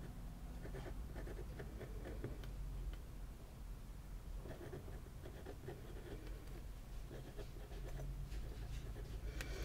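Faint scratching of a Kaweco Sport fountain pen's fine nib writing on a paper card, in short runs of strokes with brief pauses between words. A little feedback comes through from the textured desk beneath the card.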